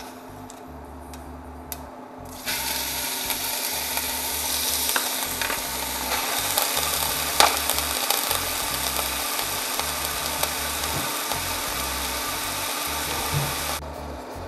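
Raw ground beef sizzling loudly in hot oil in a stainless steel stockpot. The hiss starts suddenly about two seconds in as the meat hits the oil, and it cuts off abruptly near the end.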